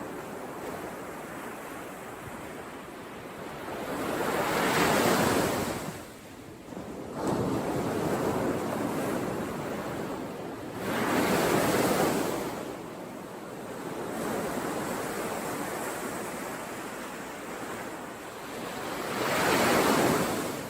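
Ocean surf: waves breaking on the shore three times, each swelling to a loud rush and falling back, with a steady wash of water between them.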